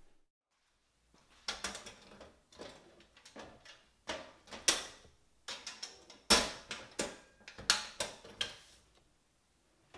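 Irregular sharp clicks and metallic knocks of a steel electrical breaker panel being worked by hand: the hinged door is opened, a breaker is switched, and the door is shut.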